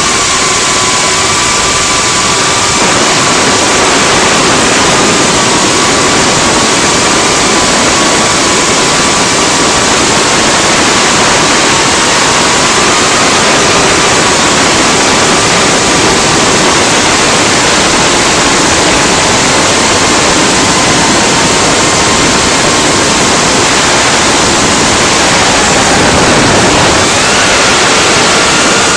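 Onboard audio of a Cinequeen FPV quadcopter in flight: a loud, steady rush of propeller wash and wind over the camera microphone, with the motors' whine held at a fairly steady pitch that rises and then falls near the end.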